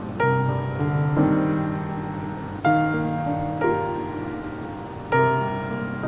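Slow, gentle piano music: a chord struck about every two and a half seconds, three times, each left to ring and fade, with a softer note added in between.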